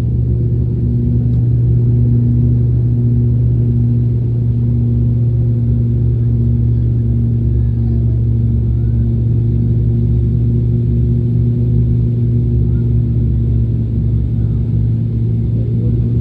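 Steady low drone of an ATR turboprop airliner's propellers and engines heard inside the cabin: one held hum with a clear pitch and overtones, over a rumble.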